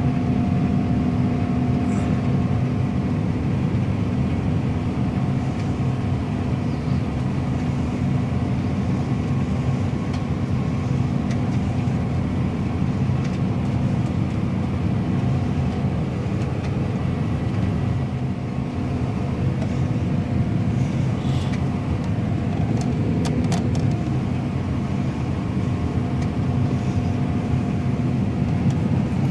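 John Deere combine harvester running steadily while cutting and threshing wheat, heard from inside its cab: an even drone with a faint steady whine over it.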